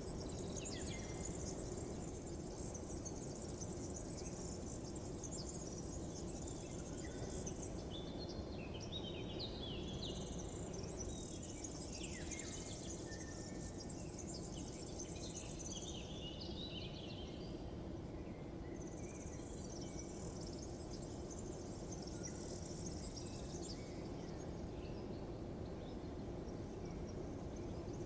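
Outdoor morning ambience: small birds chirping in three spells of several seconds each, over a steady low background hum.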